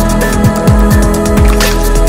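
Electronic background music with a quick, steady beat, held chords and repeated falling bass sweeps.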